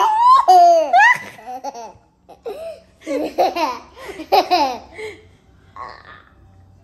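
A toddler and a woman laughing together in high-pitched bursts, loudest in the first second, with a second run of laughs a few seconds in that dies away about five seconds in.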